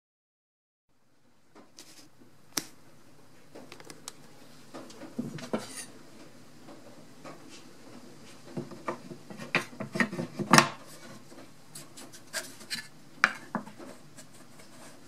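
Handling noise of a knife and wooden box pieces being set down and moved on a workbench: irregular clicks, knocks and rubbing, the loudest knock about ten seconds in, over a faint steady hum. It starts after about a second of silence.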